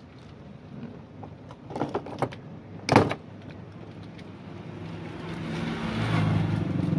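A few light clicks and a sharp knock about three seconds in, then an engine's steady hum that swells over the last couple of seconds.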